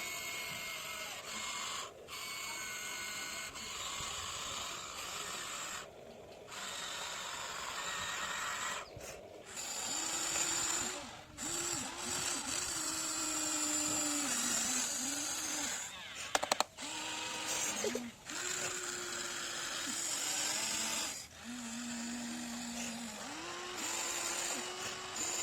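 Huina 1593 RC excavator's small electric gear motors whining in repeated short spells as the arm and bucket work the soil, the pitch sagging and recovering under load over a steady high whine, with a brief rattle of clicks partway through.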